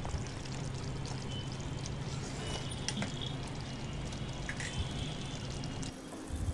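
Thick egg curry simmering in a kadai, with scattered soft pops and plops of bubbling gravy and a spatula stirring at the start. A low steady hum underneath stops about six seconds in.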